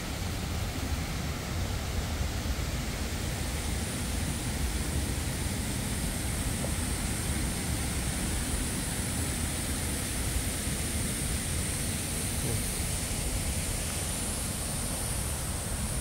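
Steady rushing of a waterfall and stream, with a low, uneven rumble underneath. A steady high-pitched hiss joins about three seconds in.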